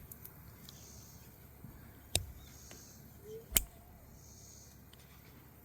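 Two sharp clicks about a second and a half apart, from a stag-handled pocket knife being handled, over a faint background with a soft high hiss that comes and goes about every two seconds.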